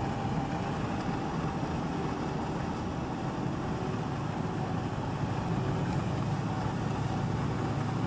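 Old Dodge pickup truck driving along at a steady speed: engine and tyre noise heard from inside the cab, a steady low rumble.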